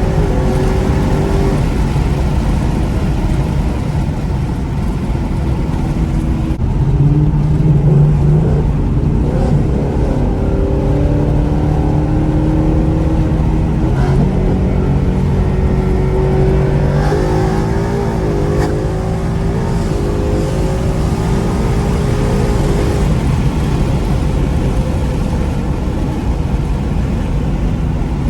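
The 2021 Mustang GT's 5.0 Coyote V8, fitted with long-tube headers and running E85, accelerating on roll-on pulls through its 10-speed automatic. The engine note climbs and then steps down with the gear changes, and it is loudest about seven seconds in.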